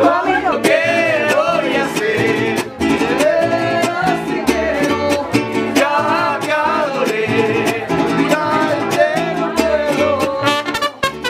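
Mariachi band playing live: several men singing together over strummed guitars and a plucked bass line. A trumpet comes in near the end.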